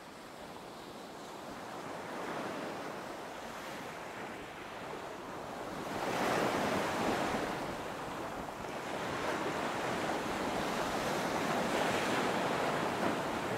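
Sea surf breaking and washing up the beach, a steady rush of waves that swells louder about six seconds in.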